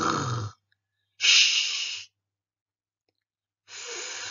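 A woman's voice sounding out isolated French consonants, as in a reading lesson: a short voiced sound like a rolled 'r', then a long hissed 'ch', then a softer 'f' hiss for 'ph'.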